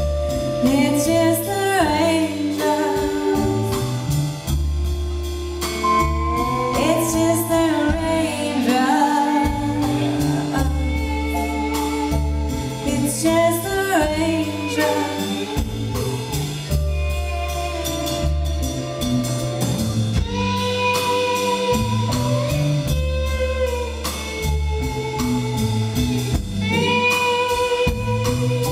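Live band music: a woman singing lead over drum kit, bass and electric guitar, recorded from the audience.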